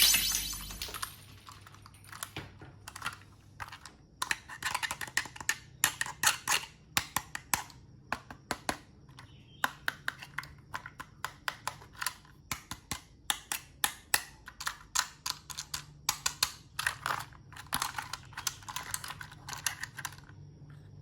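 Light clicks and taps in quick, irregular runs: small plastic toy parts being handled and clicked together.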